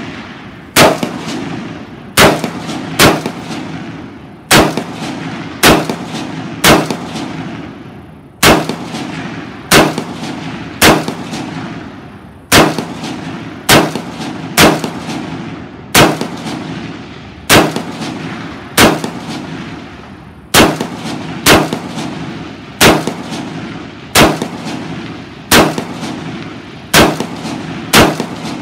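Beretta ARX-100 rifle in 5.56mm fired semi-automatically, about twenty shots at a steady pace of roughly one a second, each a sharp crack followed by a fading echo.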